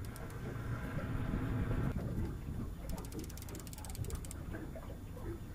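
Fishing reel clicking in rapid runs, densest about three to four seconds in, while a hooked bull redfish is fought on rod and reel.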